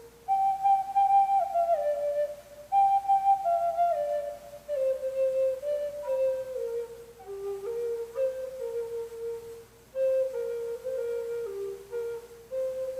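Solo Native American flute playing a slow melody. Its short phrases start high and step down, separated by brief breaths.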